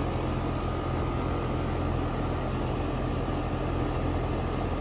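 Newly installed Lennox central air conditioner's outdoor condensing unit running in cooling mode: a steady compressor hum under the condenser fan's even rush of air, with a faint high steady tone.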